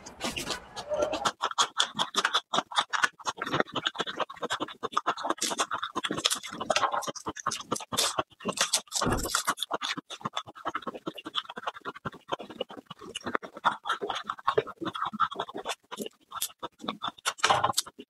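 Dry, papery garlic skins crackling and rustling as whole garlic bulbs are peeled by hand, a dense run of crisp, irregular crackles.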